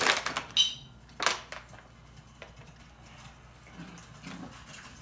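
A clear plastic water bottle crinkling as it is squeezed in a hand. There are bursts of sharp crackles at the start and again about a second later, then only faint handling noise.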